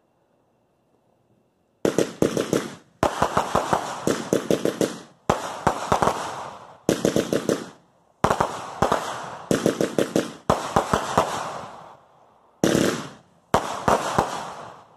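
Consumer aerial fireworks going off: after about two seconds of quiet, volleys of sharp bangs start, each volley a quick string of reports that fades away, about one volley a second until near the end.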